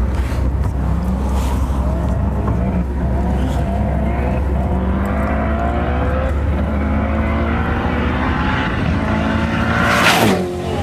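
Koenigsegg Agera R's twin-turbo V8 approaching at full throttle, its note climbing, then blasting past at about 180 mph about ten seconds in with a loud rush of air and a sharp drop in pitch. Under it runs the steady low rumble and wind of the camera car at about 40 mph, heard from its open rear hatch.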